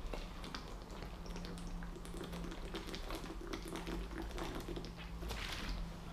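A person gulping water from a plastic bottle: a run of small swallowing clicks and ticks of the plastic, over a faint steady hum.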